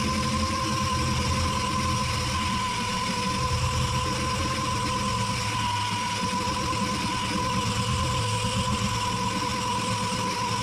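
A motor-driven workshop tool running steadily, with a constant high whine over a hiss.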